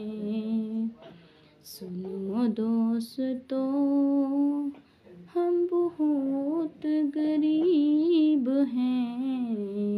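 A woman singing a slow, drawn-out tune in long held, wavering notes, close to the microphone in a small room, with short pauses about a second in and near the middle.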